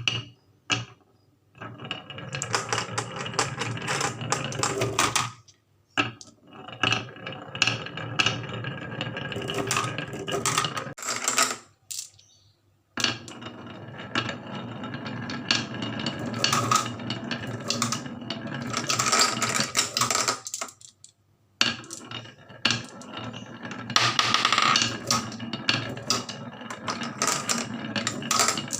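Marbles rolling and clattering down a HABA marble run: dense runs of clicks and rattles lasting several seconds, broken by a few short pauses.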